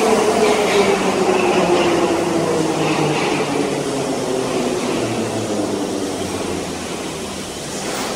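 Soviet-built metro train pulling out of an underground station. Its running noise, with a falling whine in the first few seconds, fades slowly as it heads into the tunnel, leaving a steady hum.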